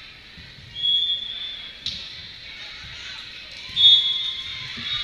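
Sports whistle blown twice in a large echoing gym, each blast a steady high tone under a second long, the first about a second in and a louder one near four seconds in. There is a sharp slap of a volleyball being hit just before two seconds.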